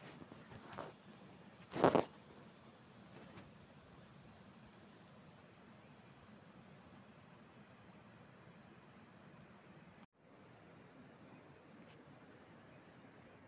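Insects chirping in a steady, evenly pulsing high-pitched trill over a low hiss, with one brief loud noise about two seconds in.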